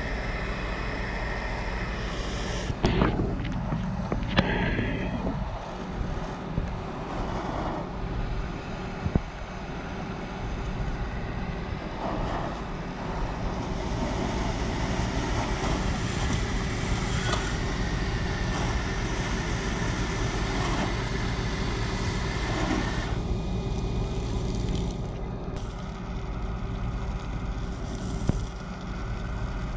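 Fire hose nozzle spraying water on a burning truck, a steady rushing hiss over the running of a fire engine's pump engine, with a few knocks about three seconds in. The hiss falls away about three quarters of the way through as the spray eases off.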